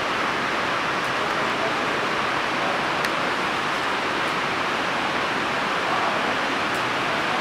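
Rain falling on the roof of an indoor riding arena, heard from inside as a steady, even hiss.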